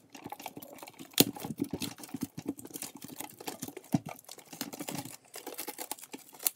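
Plastic shrink-wrap crinkling and crackling as it is peeled off a metal collector's tin, with a few sharper clicks along the way.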